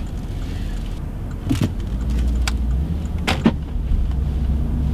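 Porsche Cayenne S running as it drives off, heard from inside the cabin: a low engine and road rumble that grows stronger about two seconds in, with a few short sharp clicks and knocks.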